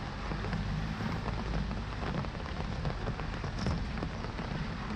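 Heavy rain falling on floodwater, a steady dense patter of countless drops, with a low rumble underneath.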